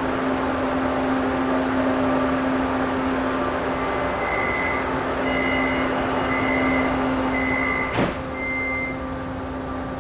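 Kaohsiung MRT train's door-closing warning: a run of five evenly spaced high beeps starting about four seconds in. Near the end the sliding doors shut with a sharp thump, all over the steady hum of the standing carriage.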